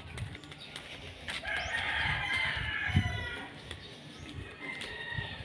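A rooster crowing once, one long call of about two seconds.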